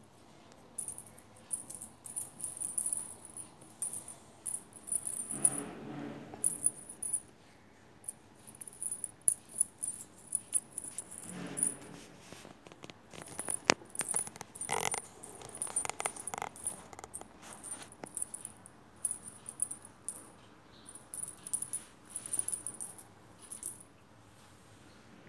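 Thin metal ankle chain jingling and clinking in irregular bursts as a kitten paws and bites at it, with a sharp click about halfway through.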